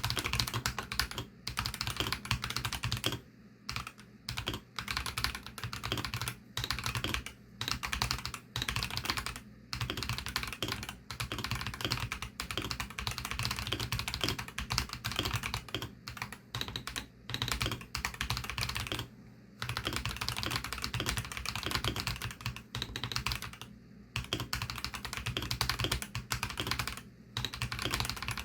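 Continuous fast typing on a Varo V87 mechanical keyboard with Varo Orange tactile switches (53 g), a dense stream of keystroke clicks broken by a few short pauses.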